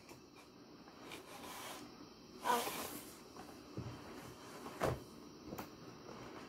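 A cardboard toy box being handled: a scraping rustle about two and a half seconds in, then a few light knocks as the box is tipped and set down flat on the table.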